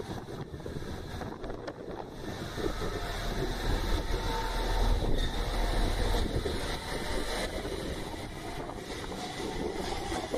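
IGR 7000 series electric train pulling out along the platform: a steady rumble of wheels and running gear that grows louder about two and a half seconds in.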